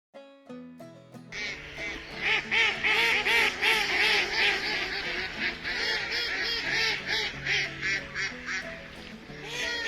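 A few short musical notes, then from about a second in a flock of ducks quacking loudly and continuously, many calls overlapping.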